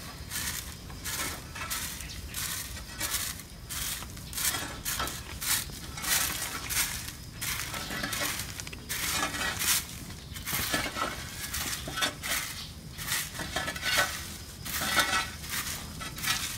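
Metal shovels scraping and scooping dry, crumbly chicken manure off the floor, a run of irregular gritty scrapes and crunches several times a second.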